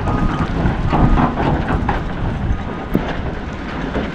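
Snowplow truck working close by: a low engine rumble with its back-up alarm beeping on a steady high note, sounding at the start, about two and a half seconds in and again near the end.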